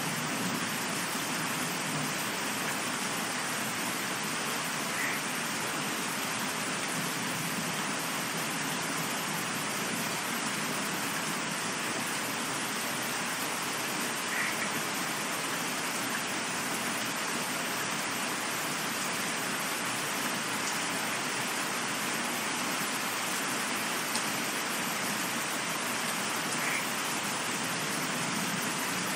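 Steady, even rain, a dense hiss of falling rain with no change in strength. A low rumble of thunder fades away in the first couple of seconds.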